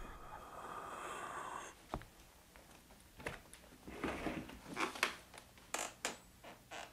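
A steady hiss that stops suddenly a little under two seconds in, then a knife cutting into a yellow squash: a few clicks, then several short scraping strokes with sharp clicks in the second half.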